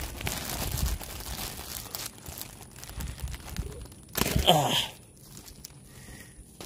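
Hands crinkling and tearing open a thin clear plastic bag, with crackling throughout. A little past four seconds in there is a brief, louder sound that falls in pitch.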